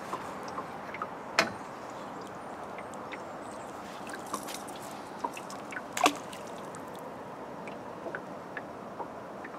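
Steady soft hiss of river water with scattered small splashes and ticks as a jerkbait is twitched and retrieved through the surface; the two loudest splashes come about a second and a half in and about six seconds in.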